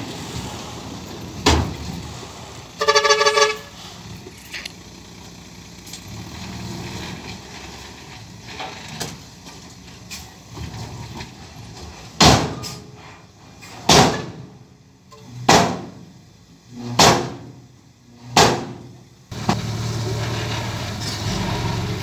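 Dump truck engine running while the bed tips its load of soil. A short pulsing horn toot comes about three seconds in, and five loud sharp bangs follow in the second half, about a second and a half apart.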